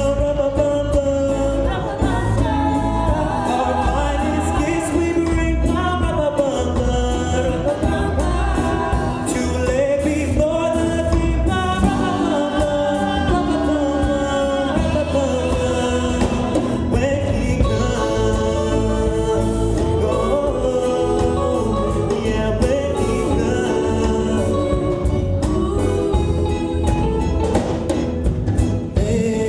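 Live gospel-style Christmas music: singers, with a choir, over a band with a steady beat.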